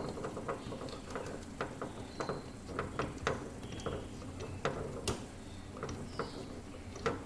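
Scattered light clicks and taps of small metal hardware being handled: bolts and the mount base being fitted, a few irregular knocks a second.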